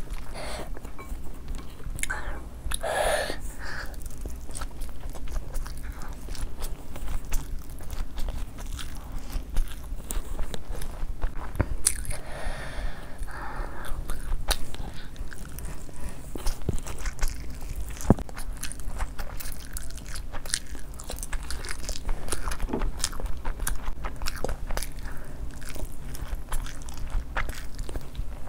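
A person eating: repeated bites, crunching and chewing, with many sharp crunches scattered throughout.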